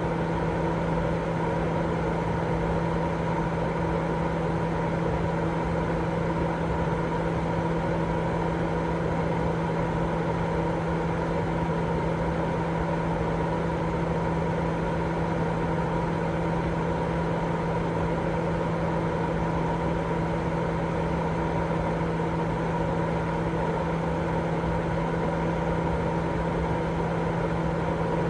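Continuous baby-sleep white noise: an unchanging, even rushing sound with a steady low hum running under it.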